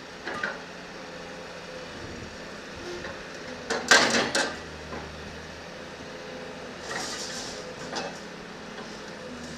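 Backhoe loader working: its engine running steadily under metal clanks and knocks, the loudest a quick cluster of clanks about four seconds in, with lighter knocks just after the start and around seven and eight seconds.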